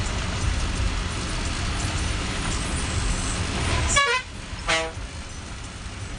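Ashok Leyland bus engine and road noise running steadily from the cab. About four seconds in the rumble drops off abruptly, and a horn sounds: a quick falling run of tones, then one short blast.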